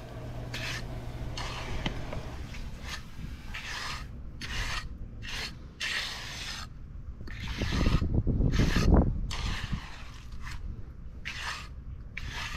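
Hand trowel scraping across the surface of freshly poured wet concrete as it is smoothed, first as a steady rasp and then in separate strokes about two a second. A low rumble swells briefly past the middle.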